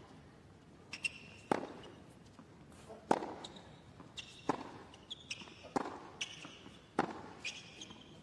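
Tennis rally on a hard court: racquets strike the ball back and forth, a sharp pock about every one and a half seconds, with softer ball bounces in between. Short high shoe squeaks come between the strokes.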